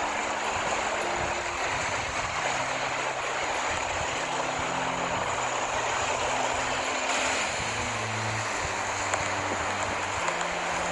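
Steady rushing noise of sea surf and wind, with faint low background music underneath that changes note every second or so.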